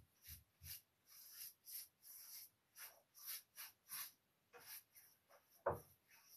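Faint swishing of a brush stroking a sealing topcoat onto the painted wooden side of a cedar chest, short strokes about two a second with brief pauses. A single louder knock near the end.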